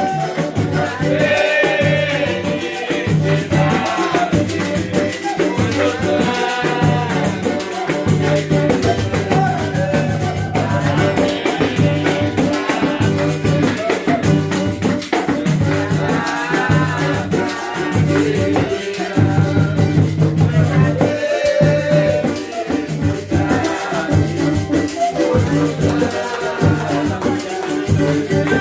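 Artcelsior Luxo cuíca, a Brazilian friction drum, played 'roncando': low grunting notes in a steady, pulsing samba rhythm, with higher gliding notes every few seconds.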